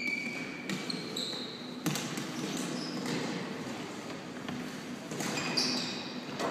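Floorball play on a sports-hall court: several sharp clacks of plastic floorball sticks striking the hollow plastic ball, with short high squeaks of sneakers on the court floor about a second in and again near the end.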